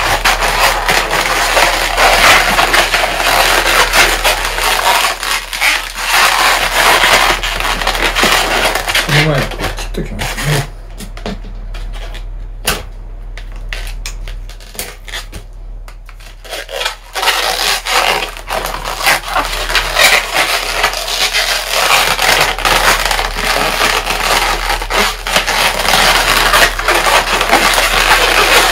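Modelling balloons rubbing and squeaking against each other and against hands as they are twisted and pressed into shape. The noise is loud and continuous, eases off for several seconds in the middle, then picks up again.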